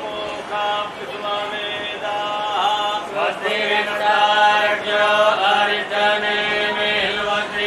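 Hindu ritual mantras chanted in a continuous recitation, the voice holding and shifting notes. A steady low hum joins about three and a half seconds in.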